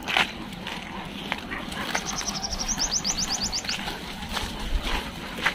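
A small bird's quick, high trill: a run of rapid chirps lasting under two seconds around the middle, over steady outdoor background noise. A sharp knock just at the start is the loudest sound.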